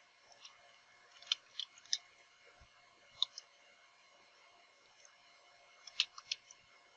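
Computer keyboard keys clicking in short irregular runs as text is typed, over a faint steady hum. The sharpest cluster of keystrokes comes about six seconds in.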